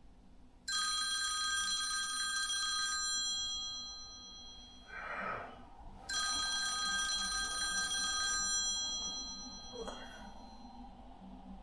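Phone ringtone ringing twice, each ring a chord of steady high tones that starts suddenly and fades over about three seconds.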